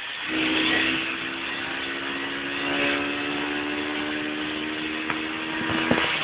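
Yamaha Aerox two-stroke scooter engine held at steady revs through a wheelie, a constant even-pitched drone, over rushing wind and road noise, with a couple of short knocks near the end.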